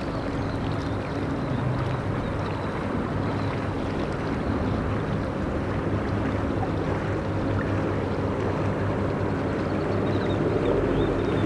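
A boat engine running with a steady low hum over a continuous hiss.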